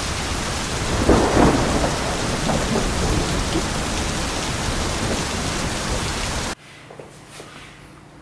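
Steady heavy rain with a rumble of thunder about a second in. It cuts off abruptly near the end, leaving only a few faint clicks.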